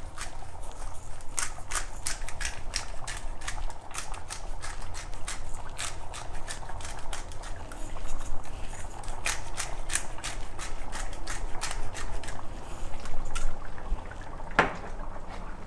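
Chicken curry simmering in a pan, with irregular crackling pops and small spatters.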